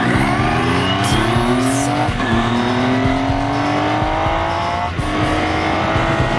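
Triumph Daytona 675 inline-three engine accelerating hard. The revs climb, then drop at an upshift about two seconds in, climb again, and drop at a second upshift about five seconds in. Wind rush runs under it.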